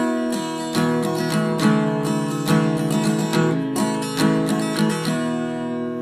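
Background music: an acoustic guitar strumming chords, the last chord ringing out near the end.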